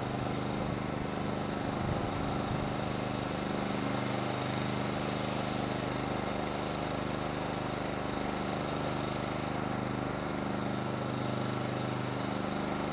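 A motor running steadily at an even pitch, with a constant hiss over it.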